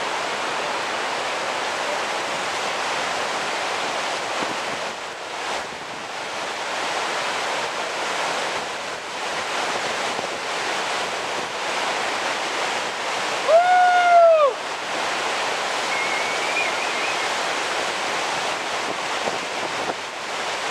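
Steady rushing roar of whitewater in a big river rapid. About two-thirds of the way through, someone lets out one loud whoop that rises and falls over about a second.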